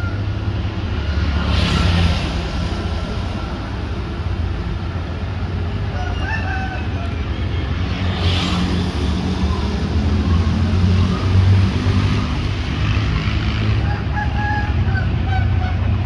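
Steady low rumble of an approaching diesel-electric locomotive and road traffic, slowly growing louder, while a rooster crows about six seconds in and again near the end. Two brief hissing swells come about two and eight seconds in.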